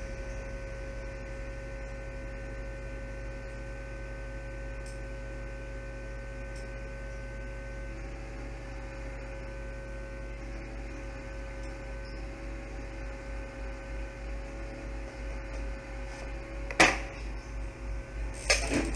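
Steady electrical mains hum with a faint constant whine from the bench equipment, broken by two sharp clicks near the end.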